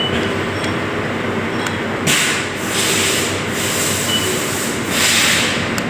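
Steady hum of workshop machinery, with two long hissing bursts, one about two seconds in and one near the end.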